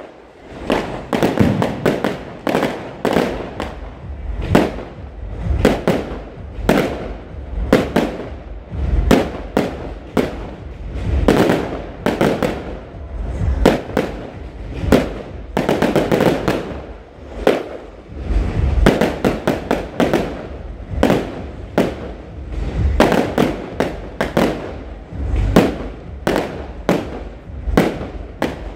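Fireworks display: aerial shells bursting one after another, often several sharp bangs a second over a continuous low rumble.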